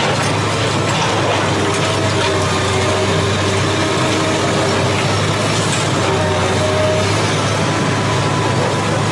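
Long-reach demolition excavator's diesel engine running steadily, with a whine that comes and goes in the middle and scattered clicking and crackling as its jaws work into the concrete wall.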